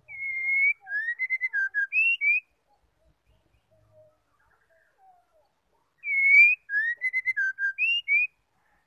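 Female white-rumped shama singing two matching whistled phrases about six seconds apart. Each phrase is a long clear whistle followed by a quick run of short notes that rise and fall. Soft, faint low notes fall in the gap between them.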